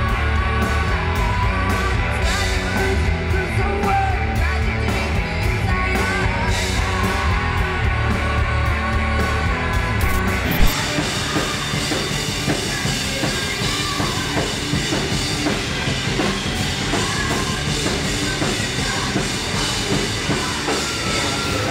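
Rock band playing live: drum kit, electric guitars and bass guitar with a sung vocal over a steady beat. About halfway through, the sound cuts abruptly with a click to another passage with less bass.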